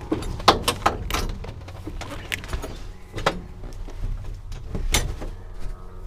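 Clicks, knocks and clothing rustle as a person climbs out of a small aircraft's cockpit, brushing against the seat harness and stepping onto the seat, with a dull low rumble underneath.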